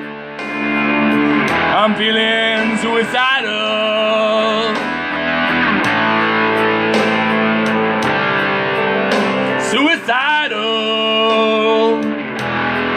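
Rock-blues song in an instrumental passage led by guitar, with sustained chords and several wavering, bent notes.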